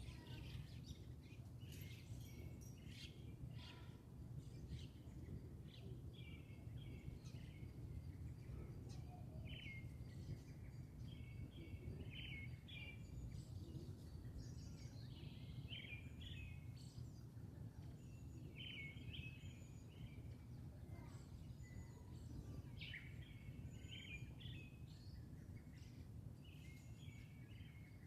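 Small birds chirping in short, scattered calls throughout, over a faint steady low rumble of outdoor background noise.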